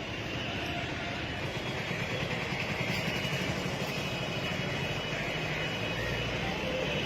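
Steady engine noise from vehicles or heavy machinery running, with a continuous low hum under an even outdoor din.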